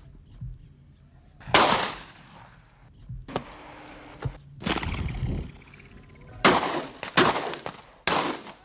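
Shotguns firing at driven red-legged partridges: about five loud, sharp reports at uneven intervals, each trailing off. The first comes about a second and a half in, and three follow in quick succession near the end.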